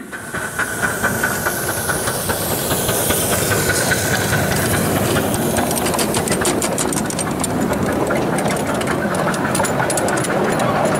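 7¼-inch gauge live-steam GWR King class 4-6-0 locomotive hissing steam, with a thin steady tone in the first few seconds that fades out. From about halfway, many sharp clicks sound over the hiss.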